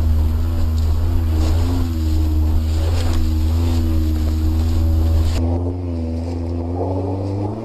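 Subaru Forester's flat-four engine working hard under load up a steep off-road climb, a loud low drone whose pitch wavers up and down with the throttle. About five seconds in the sound changes abruptly to a thinner engine note.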